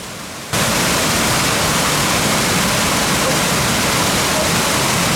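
Waterfall: a steady, loud rush of falling water, jumping up in level about half a second in and then holding even.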